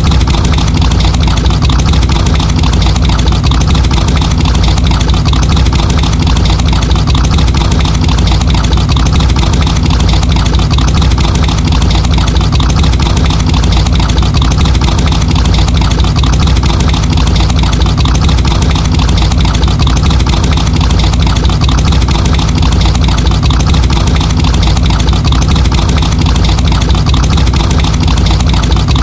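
Muscle car engine idling steadily, its sound heaviest in the low pitches and even throughout.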